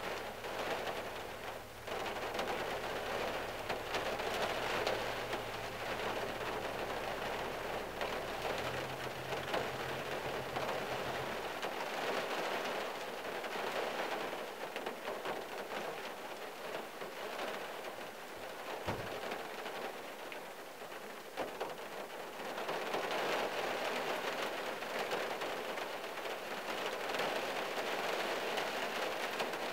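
Steady rain falling on a car's roof and windshield, heard from inside the cabin, swelling and easing in waves. A low hum underneath stops about twelve seconds in, and there is one low thump about two-thirds of the way through.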